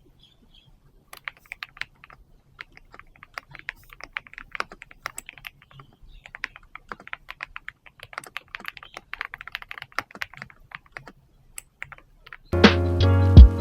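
Typing on a GMK87 mechanical keyboard fitted with linear switches, a quick, uneven run of key clacks that starts about a second in. Music with a beat comes in near the end.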